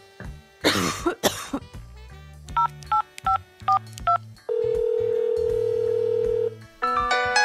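Two coughs, then a mobile phone's keypad tones beeping quickly as a number is dialled, followed by one steady ringing tone for about two seconds, over light background music.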